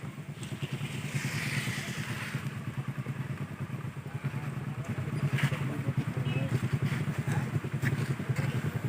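A vehicle engine running steadily with a fast, even putter, growing a little louder after about five seconds.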